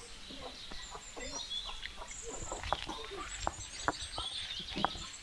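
Chickens clucking, with small birds chirping high overhead and several short, sharp knocks.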